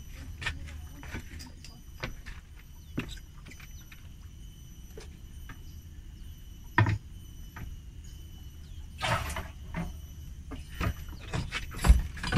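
Scattered knocks and clicks of people moving about on a small boat, the loudest about seven and twelve seconds in, with a short patch of rustling in between.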